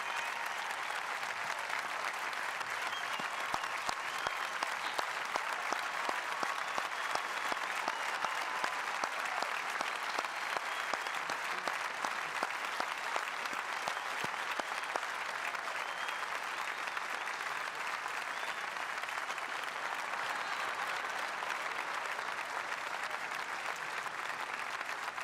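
A large outdoor audience applauding steadily at a graduation ceremony, many hands clapping at once, with faint calls and cheers mixed in.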